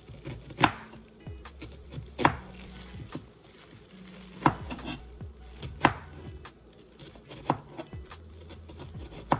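Chef's knife slicing a red onion: the blade knocks sharply on the cutting surface six times, roughly every one and a half seconds.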